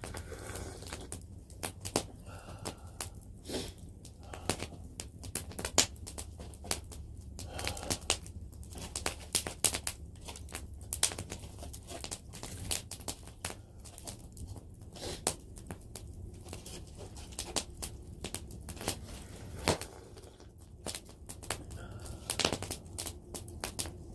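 Open wood fire crackling, with irregular sharp pops and snaps several times a second.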